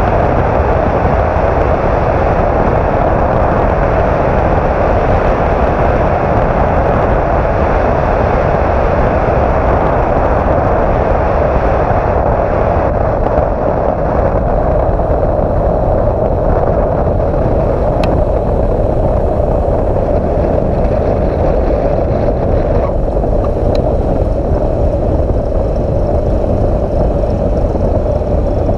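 Cessna 172's engine and propeller running steadily with wind rushing over an outside-mounted camera, as the plane comes in over the runway to land.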